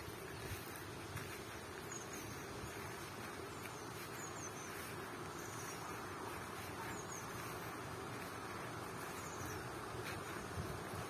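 Steady buzzing of insects in a summer meadow, with faint high chirps now and then.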